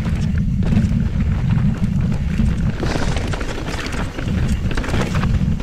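Mountain bike rattling and clattering over rough, square-edged rock at speed, with a rapid run of knocks from the tyres and frame hitting rock. Heavy wind rumble on the microphone runs underneath.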